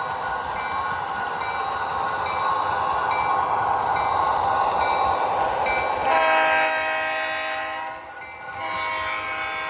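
Model locomotive sound decoder (Tsunami 2 in an HO-scale GP40-2) playing diesel running sounds with a bell ringing about every two-thirds of a second. A multi-chime horn then blows a long blast about six seconds in, and sounds again near the end.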